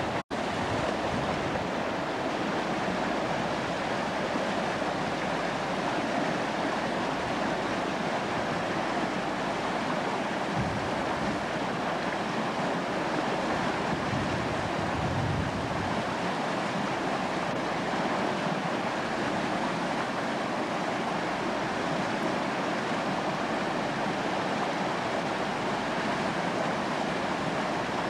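Fast mountain creek rushing steadily over rocks in white water. The sound cuts out for an instant right at the start.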